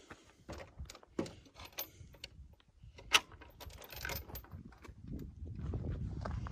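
A person walking: uneven footsteps with scattered clicks and clinks, one sharp click about three seconds in, and a low rumble building toward the end.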